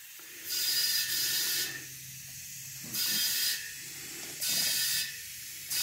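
Compressed air hissing through a trigger tire inflator with a dial gauge into a tubeless riding-mower tire. It comes in three short bursts, the first about a second long, with a fourth starting at the end, as the trigger is squeezed and released. The tire is taking air now that its bead has seated.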